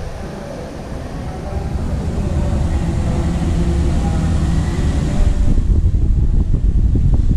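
Low, uneven rumbling of wind buffeting the microphone, growing louder partway through.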